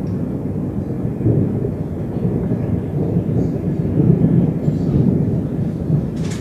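Rolling thunder from cloud-to-cloud lightning: a continuous low rumble that swells about a second in and again around four seconds.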